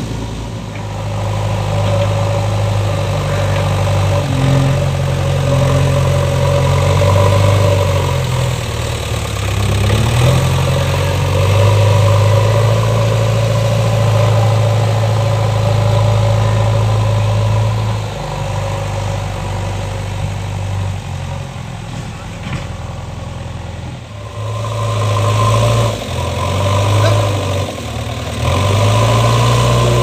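JCB 3DX backhoe loader's diesel engine working under load as the machine pushes and levels soil, its note rising and falling with the throttle. It eases to a lower, quieter run for a few seconds past the middle, then picks up again.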